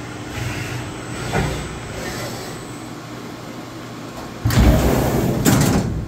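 Sheet-metal sliding door of a CNC mill enclosure being slid open, a loud run along its track lasting about a second and a half near the end. Under it, the machine's steady hum, with a faint high whine that stops about halfway.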